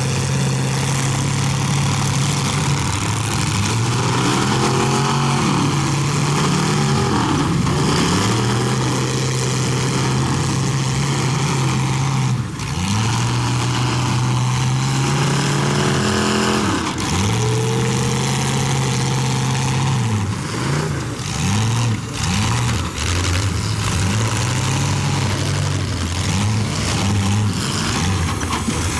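Several demolition derby cars' engines revving up and down over one another, with a few sharp crash impacts, clustered after about twenty seconds.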